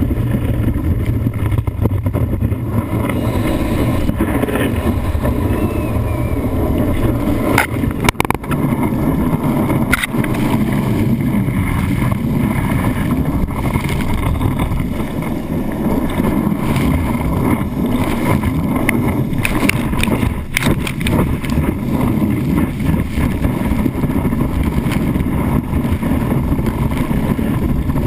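Steady rush of water and wind on a wakeboard-mounted camera as the board planes across the lake, with sharp spray hits around eight and ten seconds in and again near twenty.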